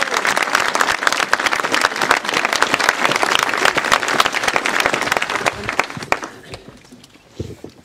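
Audience applauding, dense clapping that dies away about six seconds in.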